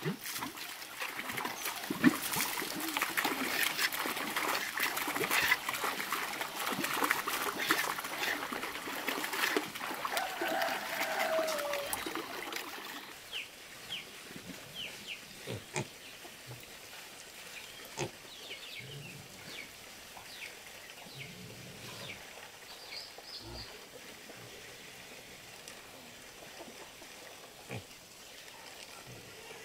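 Water splashing and sloshing at a pond's edge for the first dozen seconds as hands work in the water. Then, quieter, small black pigs grunting low now and then while rooting in mud, with a few short high calls and clicks.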